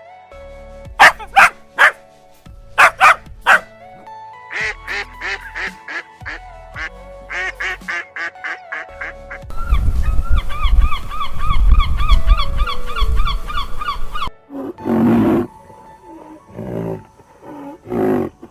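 Ducks quacking in repeated short calls over background music, with a denser, louder run of calls in the middle.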